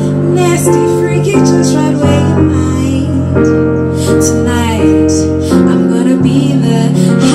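Live female vocals sung into microphones over electric keyboard chords. The chords are held and change every second or two, under a wavering sung melody.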